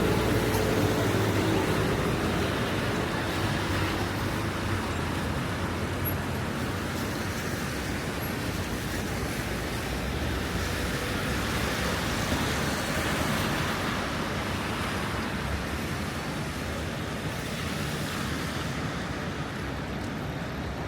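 Rainy city street ambience: a steady hiss of traffic on wet road and falling rain, with a passing vehicle's engine fading away at the start.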